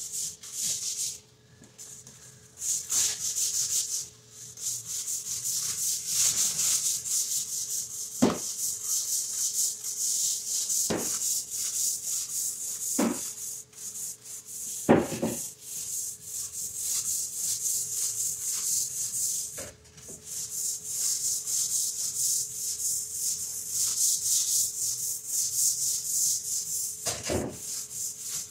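Long-handled scrub brush scrubbing a wet, soapy, muddy tile floor: repeated hissing strokes of the bristles on the tile, with a few sharp knocks from the brush head along the way.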